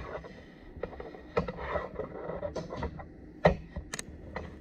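Scattered clicks and knocks from hands handling a Diamond GZV-6000 switch-mode power supply and pulling down its hinged front-panel flap. The loudest knock comes about three and a half seconds in and a sharp click follows just after, over a faint steady high tone.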